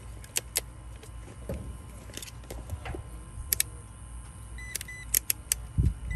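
Fieldpiece digital clamp meter being handled and set up: sharp plastic clicks as the test leads are plugged in and the rotary dial is turned, and the meter giving two short high beeps about four and a half seconds in, with a low knock near the end, over a steady low hum.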